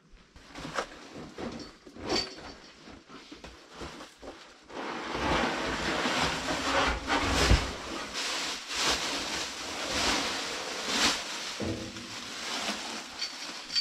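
Large cardboard shipping box being opened and its packing material handled: irregular rustling, crinkling and sharp knocks. The handling is sparse at first and grows busy and louder from about five seconds in, easing off near the end.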